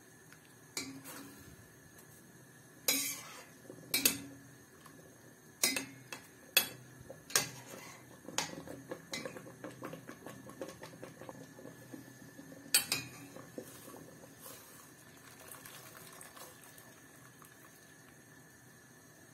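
Metal skimmer clinking and scraping against a stainless steel pot as cabbage leaves are turned in boiling water. There are about eight sharp clinks in the first two-thirds, then softer scraping and stirring.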